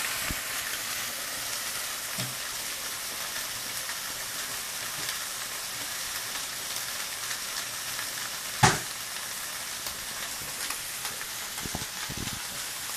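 Steaks searing in a very hot frying pan, sizzling steadily. A single sharp knock, the loudest sound, comes about two-thirds of the way through.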